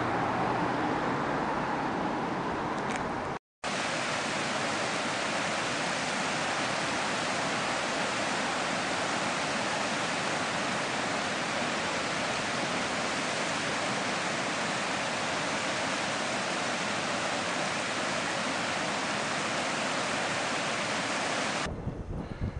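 A steady, even rushing noise, without pulses or changes, after a hard cut about three and a half seconds in; before the cut, a vehicle-like hum with a few steady low tones. Near the end it cuts off abruptly.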